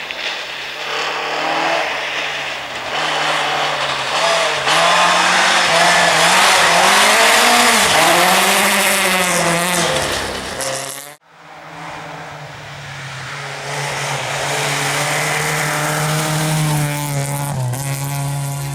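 Rally car engine at high revs on a gravel stage, pitch rising and falling with gear changes and lifts as it approaches and passes, loudest around the middle. After a sudden cut a little past halfway, another rally car is heard approaching at fairly steady high revs.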